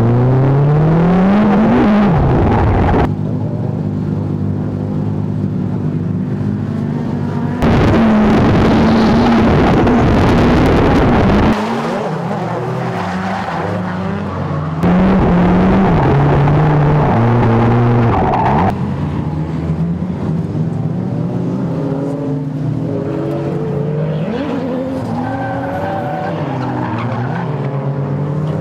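Drift cars' engines revving hard and held high while the tyres squeal and skid through smoky slides, with several cars sliding in tandem. The loudness jumps up and down several times, and the engine pitch climbs and falls between slides.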